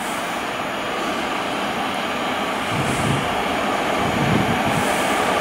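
EP07 electric locomotive hauling a passenger train on its approach, a steady rumble of the locomotive and wheels on rail growing slowly louder.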